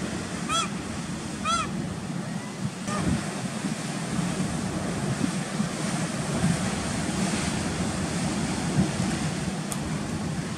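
Surf washing steadily over rocks. Gulls give two short calls about half a second and a second and a half in.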